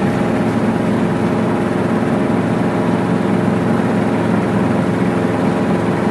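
Helicopter engine and rotor running at a steady drone, heard from inside the cockpit as it moves low along the taxiway.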